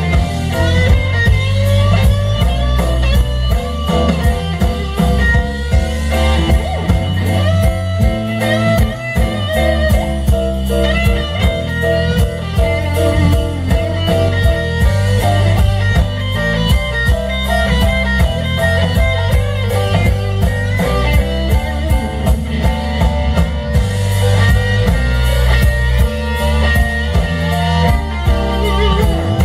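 A live electric blues band playing an instrumental guitar solo: a lead electric guitar plays over bass guitar and drum kit, with no vocals.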